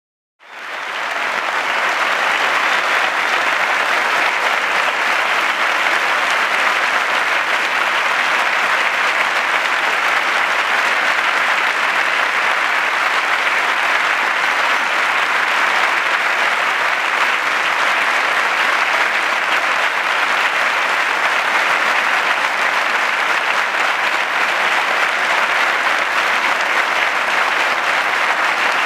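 Football stadium crowd clapping steadily in a sustained minute's applause, fading in at the start.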